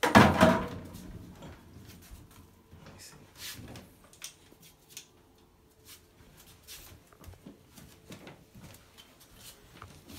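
A loud rustling thump right at the start, then faint scattered clicks and rustles as the cable of a handheld inspection camera is handled and fed down into a drained toilet bowl.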